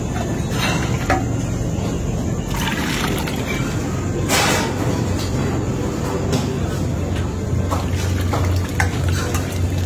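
Thick dal being ladled and poured from a metal bucket into a large metal pot: liquid sloshing and splashing, with a few knocks of metal vessels over a steady low hum.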